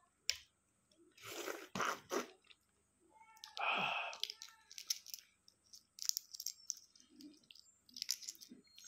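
A balut eggshell crackling and clicking as it is peeled by hand, with chewing in between. One louder breathy noise comes about three and a half seconds in.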